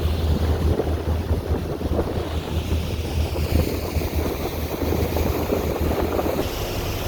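Tour boat's engine running with a steady low drone, with wind buffeting the microphone and water noise from the moving boat.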